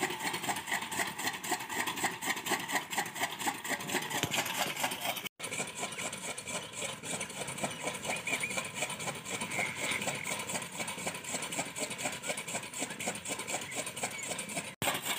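Camel-driven gear drive of an old chaff cutter (toka machine) turning, giving a fast, even mechanical clatter of about five beats a second. The sound breaks off for an instant twice.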